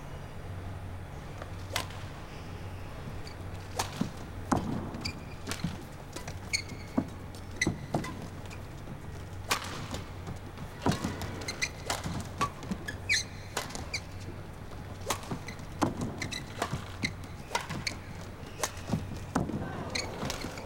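Badminton rally: sharp racket hits on the shuttlecock about every second, with sneakers squeaking on the court between strokes, over a low hall hum.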